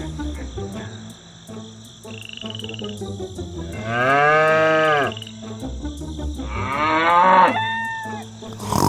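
A cow mooing: one long call about four seconds in, followed by a shorter, rising call near the end.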